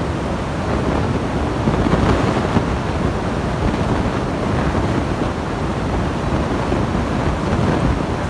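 Wind buffeting the microphone, a loud, gusting rumble with a rushing hiss.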